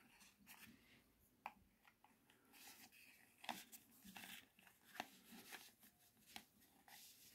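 Near silence with a few faint clicks and soft rustles of a small cardboard perfume box and a miniature glass vial being handled.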